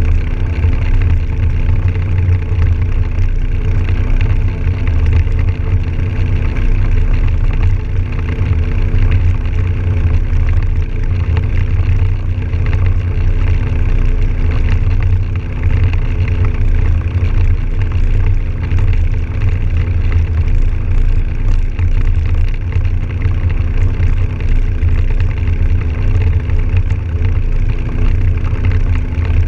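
Can-Am Outlander 1000 XT-P ATV's V-twin engine running at a steady cruise on pavement, its even engine note over a constant low rumble of wind and road.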